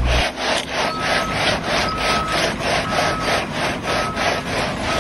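Rhythmic rasping scrapes, about four strokes a second, with a short steady high beep about once a second.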